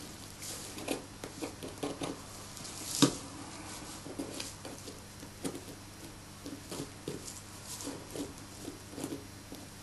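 Scalpel and fingers working a squirrel's skin off the lower jaw: faint, irregular small clicks and soft wet taps, with one sharper click about three seconds in, over a faint steady hum.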